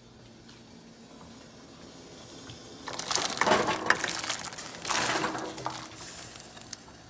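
Diced potatoes tipped into a pot of boiling water in two pours, the first about three seconds in and the second about two seconds later.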